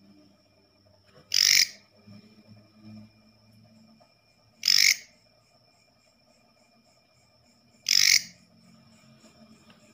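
Leaf katydid (bush cricket) calling: three short, loud calls about three seconds apart, each lasting about a third of a second, over a faint steady high-pitched whine.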